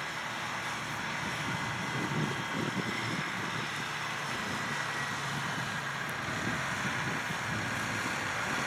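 Diesel engine of a cab-over semi-truck running steadily at low revs as the rig rolls slowly across grass.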